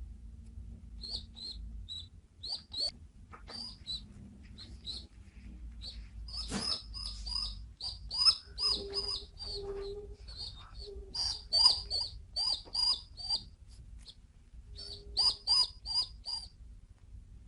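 Two-week-old baby pigeon (squab) squeaking in quick runs of short, high peeps, the begging calls a squab makes at feeding time.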